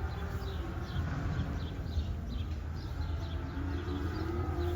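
Cattle pen ambience: a steady low rumble with faint, repeated high chirps, and a cow starting to low near the end.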